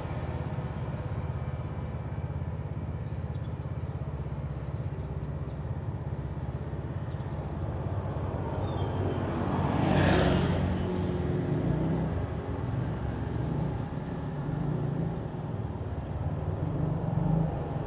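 Street ambience with a steady low rumble of traffic. About ten seconds in, a motorcycle passes close by, its engine swelling and then fading.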